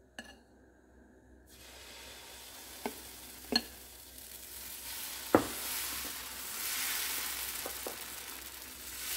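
Dosa batter sizzling on a hot dosa tawa as it is ladled on and spread out in circles with the ladle. The hiss starts about a second and a half in and grows louder, broken by three sharp clicks of the ladle, the third the loudest.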